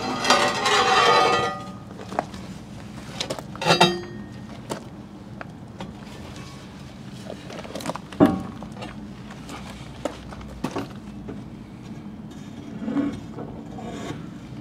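A heavy bronze propeller being handled and slid onto a stainless propeller shaft coated with lapping compound. Metal clunks and scrapes are heard, with a louder grating noise in the first two seconds, another near four seconds and a single thump about eight seconds in.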